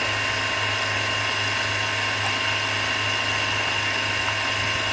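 Milling machine running steadily, its spindle spinning a Chrysler distributor with the cap off: an even motor hum with a few steady whining tones above it.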